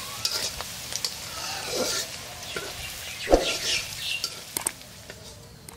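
Chopped onion and green chilies frying in oil in a pan, stirred with a spatula that scrapes and clicks against the pan, with one sharp louder knock a little past halfway.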